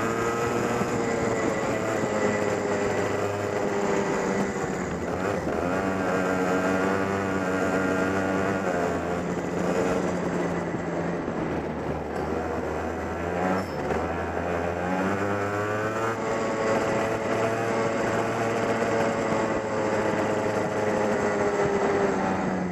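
Go-kart engine heard on board, revving up and falling off again several times as the kart accelerates and lifts for corners on a wet track.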